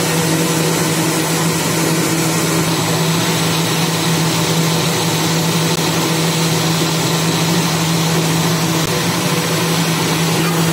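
A Philips mixer-grinder's motor running steadily at speed with an even hum, blending a mango milkshake in its jar.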